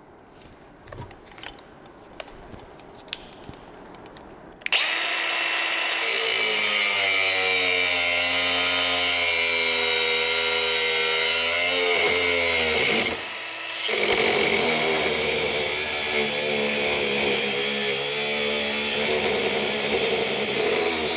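Cordless angle grinder with an abrasive cut-off disc starting up about five seconds in and cutting through quarter-inch steel plate. Its motor pitch sags and recovers as it loads in the cut, eases off briefly about two-thirds of the way through, then cuts on. Before it starts there are a few light handling clicks.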